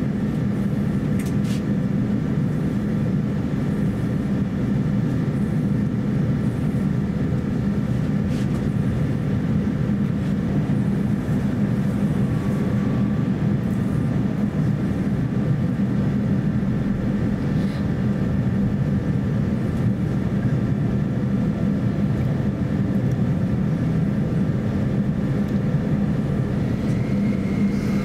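Steady drone inside the cabin of an Airbus A350-900 during pushback, with several steady whines over the low hum. A new higher whine comes in near the end.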